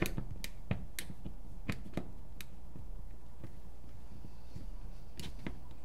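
A screwdriver working a small screw out of a paintball pistol magazine, with light clicks and taps of the tool and the parts. The clicks come in a scattered run over the first two and a half seconds, then pause, with two more near the end.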